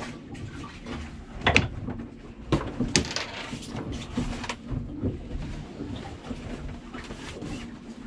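A lee cloth being let down and a person climbing out of a small sailboat's bunk: fabric rustling with a few sharp clicks and knocks, the loudest about a second and a half in.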